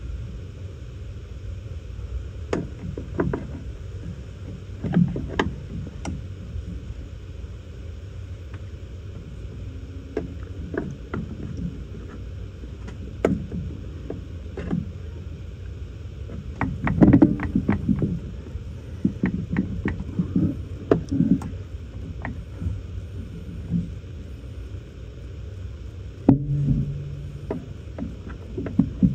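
Scattered knocks, clicks and clatter of parts and tools being handled during heater-core disassembly, over a steady low rumble. Near the end comes a short steady hum about a second long.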